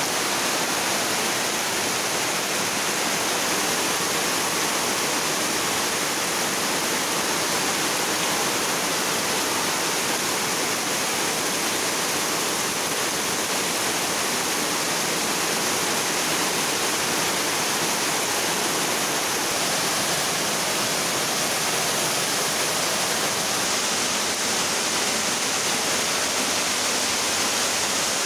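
Heavy tropical rain pouring steadily onto puddles, wet ground and grass, a constant even hiss that does not let up.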